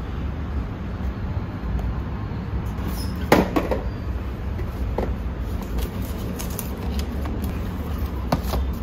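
Cardboard product boxes being handled on a stack, giving a few sharp knocks and rustles, the loudest about three and a half seconds in, over a steady low rumble.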